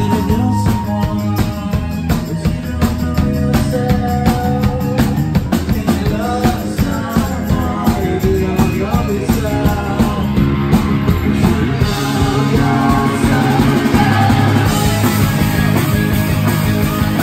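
Rock band playing live: drum kit, electric and acoustic guitars and bass, with a man singing over them. The band grows fuller and a little louder about twelve seconds in.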